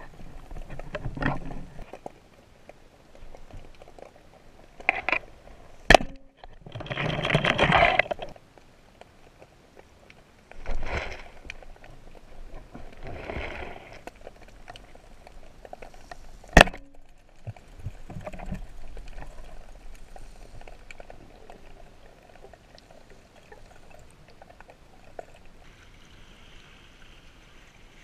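Water rushing and bubbling heard underwater, coming in bursts, with a few sharp clicks; the loudest click comes a little past halfway.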